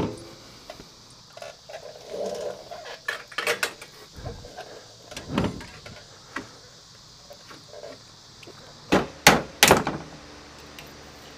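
Light metal clinks and knocks as a coil-over shock absorber with its coil spring is worked out of a UTV's suspension and handled, then two louder knocks close together near the end.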